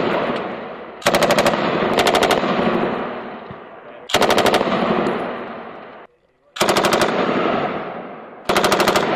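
M249 light machine gun firing five short bursts of about half a dozen rounds each, a few seconds apart. Each burst trails off in a long fading echo across the range.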